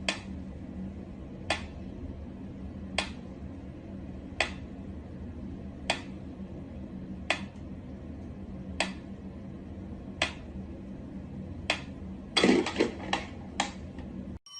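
Sharp, evenly spaced clicks about every second and a half over a steady low hum, then a quick flurry of clicks near the end.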